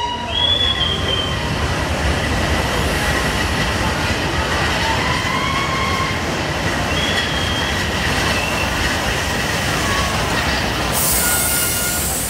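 FS Gr. 625 steam locomotive ('Signorina') and its train rolling slowly into the station: a steady rumble of wheels on rail with several brief high squeals. A loud high hiss comes in near the end as the engine passes close.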